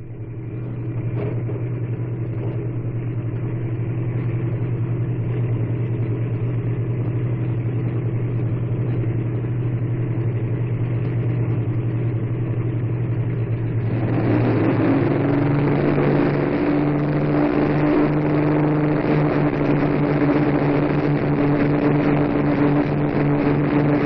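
The four Rolls-Royce Merlin engines of an Avro Lancaster bomber, heard from inside the aircraft, running in a steady drone. About fourteen seconds in they open up to take-off power, louder and a little higher in pitch, as the loaded bomber begins its take-off.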